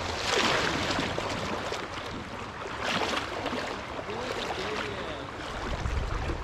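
River water rushing and splashing close by, a steady hiss of current. A low rumble swells near the end.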